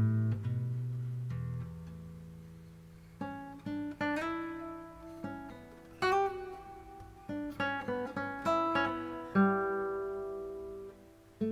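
Instrumental background music on acoustic guitar: plucked notes and chords, each ringing out and fading.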